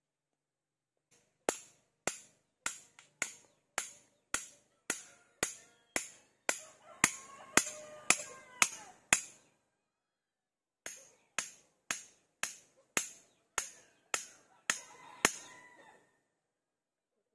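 A hand tool striking over and over at an even pace of about two sharp strikes a second: about fifteen strikes, a short pause, then about nine more.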